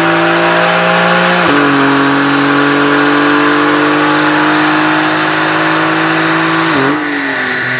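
Porsche 992 Carrera 4S's twin-turbo flat-six pulling under load on a chassis dyno through an Akrapovic titanium exhaust, revs climbing steadily. The pitch drops suddenly about a second and a half in as it shifts up, climbs again, then dips and eases off near the end as the sound gets a little quieter.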